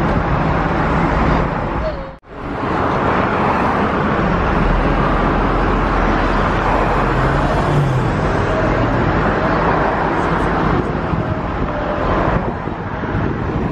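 Steady city road traffic noise, a low rumble with hiss, as heard from a moving sightseeing bus. It drops out suddenly for a moment about two seconds in.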